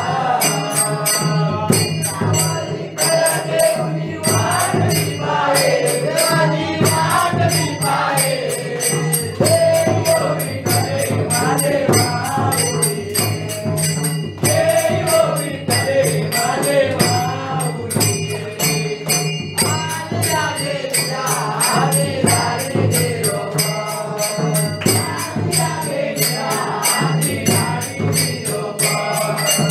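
A group of men singing a Ganesh aarti together in unison, keeping a steady beat with rhythmic hand-clapping.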